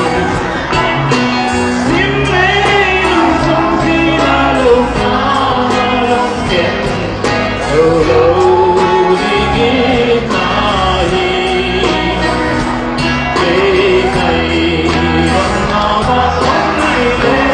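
Rock band playing, with a male voice singing over electric guitars and drums.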